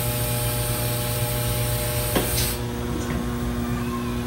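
Steady machine hum with several fixed tones under a hiss, and a single click about two seconds in.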